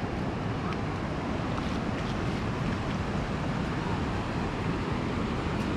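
Ocean surf washing onto the beach, a steady wash of noise, with wind blowing on the microphone.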